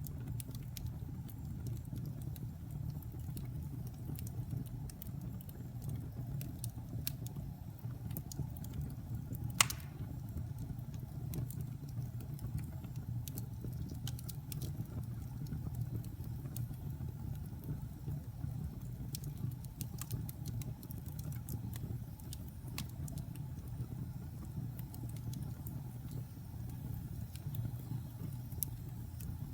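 Wood fire burning in a fireplace: a steady low rumble of flames with scattered crackles, and one sharp pop about nine and a half seconds in.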